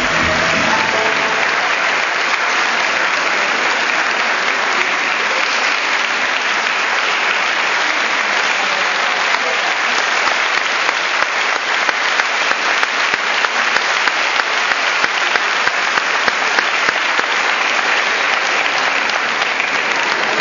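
Large audience applauding steadily, a dense sustained clapping, with the last of the show music fading out in the first second.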